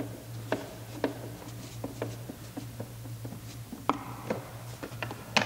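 Cross-head screwdriver turning out a screw from a car's plastic door panel: light, scattered clicks and ticks about every half second, with a sharper cluster of clicks near the end, over a steady low hum.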